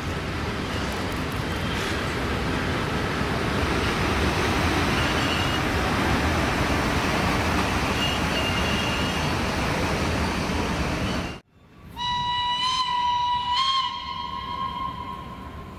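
An SBB Ae 6/6 electric locomotive passing close and moving away, a loud steady rushing rumble that cuts off abruptly about eleven seconds in. It is followed by one long, steady single-pitched horn or whistle blast lasting nearly four seconds.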